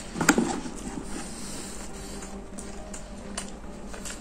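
A person chewing a mouthful of egg sandwich, with soft mouth clicks every second or so over faint background music. The loudest moment is a brief burst just after the start.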